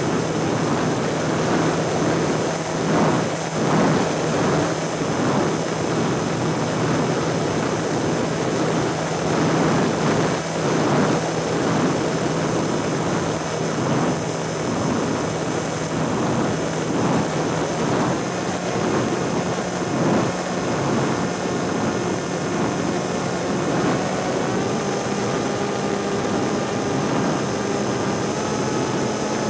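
Wind rushing over the microphone of a camera on a small aircraft in flight, with a steady propeller-engine hum underneath. The engine's pitch steps up several times in the last third.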